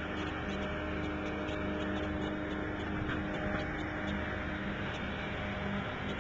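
An engine running steadily: an even mechanical drone with a few fixed low hum tones and a constant hiss, with no change in speed.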